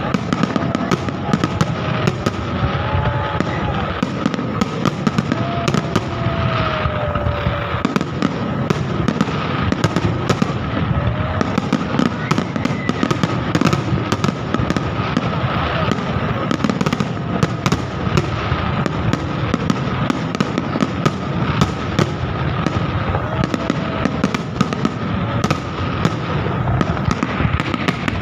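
Fireworks display going off without a break: dense rapid crackles and bangs over a continuous low rumble.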